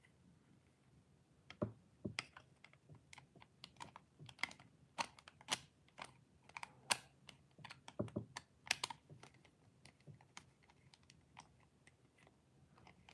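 Small screwdriver tightening a wire into the terminal screw of a plastic two-way light switch: faint, irregular clicks and scrapes of the blade on the screw head and switch body, mostly between about two and nine seconds in.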